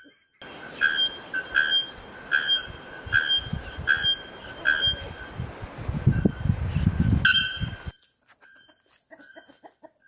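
Bare-throated bellbird (araponga, the 'ferreiro') giving its metallic, ringing call, a single clear stroke repeated a little under once a second, the last one loudest. A low rumble sits under the later calls.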